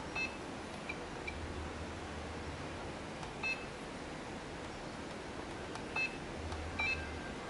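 FlySky FS-i6 radio transmitter giving short high beeps as its menu buttons are pressed, about six in all and spread unevenly, over a steady hiss.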